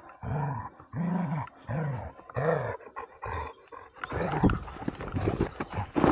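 Dobermann giving about five deep barks in a steady rhythm. From about two thirds of the way in, scuffling and knocking follow as the dog engages the helper's padded bite suit.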